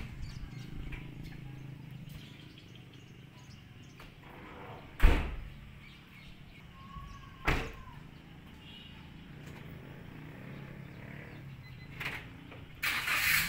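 Outdoor ambience with a low steady hum, broken by a few sharp bangs: a loud one about five seconds in, a second about two and a half seconds later, a smaller one near the end, and then a short burst of noise.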